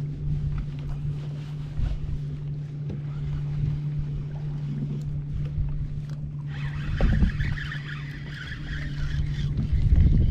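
Sounds on a small fishing boat: a steady low hum under uneven wind buffeting on the microphone. A higher whirring joins about six and a half seconds in and carries on to the end.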